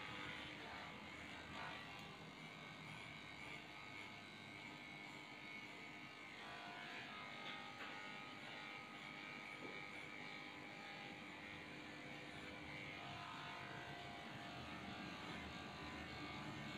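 Electric dog grooming clippers running with a steady buzzing hum as they shave through a Shih Tzu's matted coat.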